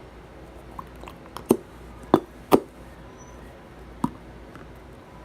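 A few short, sharp clicks and pops over a faint steady hum: one about a second and a half in, two close together a little after two seconds, and a smaller one about four seconds in.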